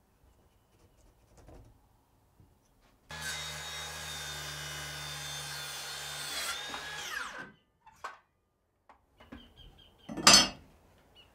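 Circular saw starting up and cutting through a wooden batten for about four seconds, then spinning down with a falling whine once the trigger is released. A single loud knock near the end.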